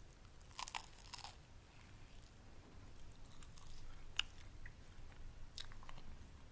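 Close-miked biting and chewing of a crispy pan-fried egg wrap, giving short crunchy crackles in a few separate bursts, with a sharp crunch a little after four seconds.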